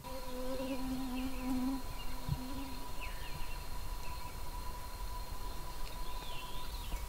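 An insect buzzing close by for about two and a half seconds, with one short break, then moving off. Under it runs a steady thin high tone, with faint chirps.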